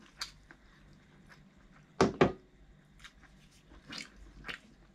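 Close-up eating sounds: a person chewing and biting into air-fried barbecue duck, with two loud sharp crunches about two seconds in and smaller clicks and smacks around them.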